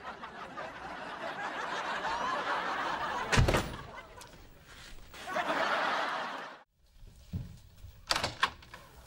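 Studio audience laughing, swelling for about three seconds, with a sharp thud just after; a second burst of laughter then cuts off abruptly, followed by a few short knocks and clicks near the end.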